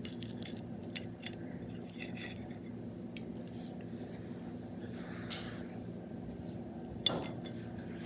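Steel knife and fork clinking and scraping against a ceramic plate while cutting a boiled dumpling in half: a few light, scattered clinks, the sharpest one about seven seconds in, over a steady low hum.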